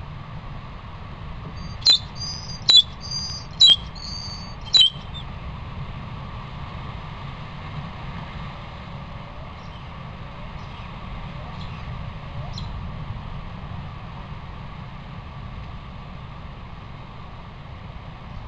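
Steady hiss from a trail camera's microphone, broken by four short, sharp, high-pitched chirps from about two to five seconds in, with a few faint squeaks later.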